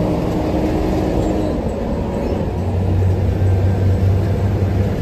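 Cabin noise of a moving Hino AK8 bus: diesel engine and road rumble, with the low engine note growing stronger about halfway through.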